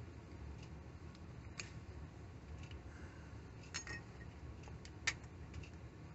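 Light clicks and taps of small metal tools and thread being handled at a bench vise during thread wrapping, with a sharper click about five seconds in, over a low steady hum.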